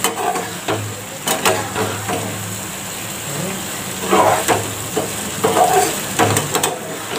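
A slotted spatula stirring and scraping sevaiyan (vermicelli) around a pan on a gas burner in irregular strokes, over a steady sizzle. The vermicelli is cooking down the last of its water.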